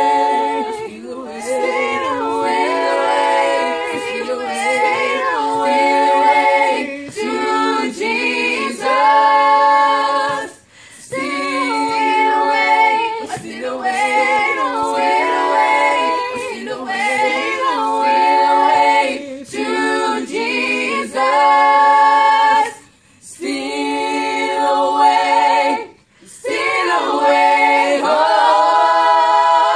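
A small vocal group singing a cappella in harmony, several voices holding chords together. The singing breaks off briefly three times.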